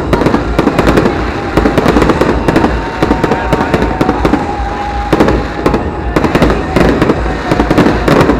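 Fireworks display going off: a rapid, continuous run of sharp bangs and crackling, many bursts a second, overlapping with no pause.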